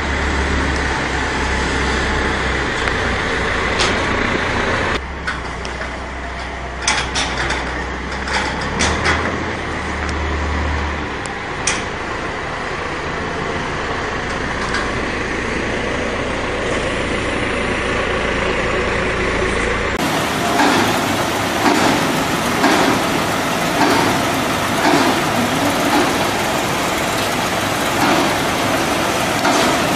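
Farm tractor engine running as it pushes feed along a barn feed alley with a tyre feed pusher. The sound changes abruptly about two-thirds through, then pulses regularly about once a second.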